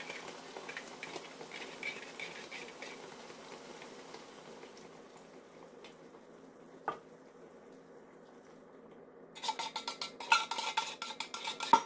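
A pan of crabs sizzling softly while a metal spoon scrapes inside a tin can of coconut milk, with one sharp click in the middle. Near the end comes a quick run of loud metallic clatter and scraping against the can as the last of the coconut milk is emptied into the pan.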